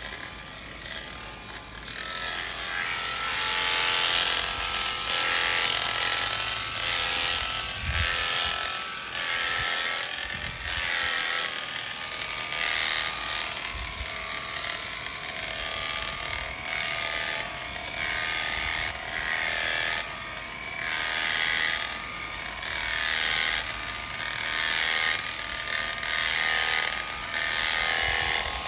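Premier One electric sheep shears running with a steady whine while the comb and cutter bite through a ram's wool in repeated strokes that swell and ease a second or so apart. The cutting grows louder about two seconds in.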